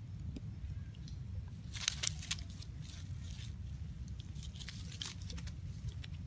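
Dry leaves and grass crackling and rustling as baby macaques scuffle on the ground, in a burst about two seconds in and a longer run from about three seconds, over a steady low rumble.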